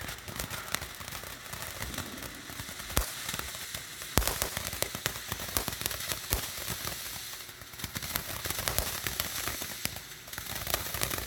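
Small consumer firework crackling continuously, a dense run of sharp little pops with a couple of louder cracks about three and four seconds in.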